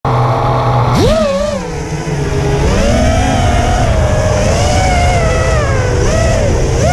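FPV racing quadcopter's motors and propellers, recorded from the camera on board. A steady low hum while armed on the ground, then a sharp rising whine about a second in as the throttle is punched for takeoff, after which the pitch wavers up and down with the throttle.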